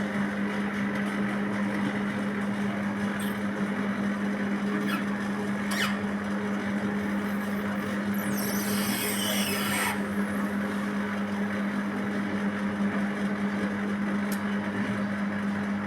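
Split air conditioner's outdoor unit running, with a steady compressor hum and fan noise. Its liquid-line valve is closed, so the compressor is pumping the refrigerant back into the outdoor unit. A hiss of about two seconds comes roughly halfway through.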